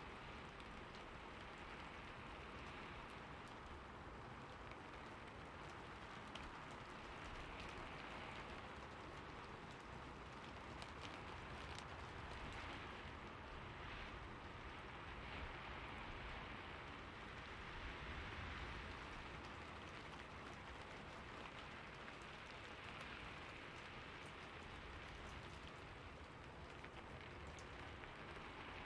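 Steady rainfall, a soft even hiss with scattered drop ticks that swells and eases gently.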